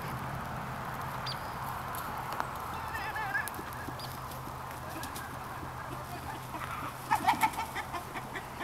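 A rooster squawking in alarm while being chased: a brief wavering call about three seconds in, then a burst of short, loud squawks near the end, over a steady low hum.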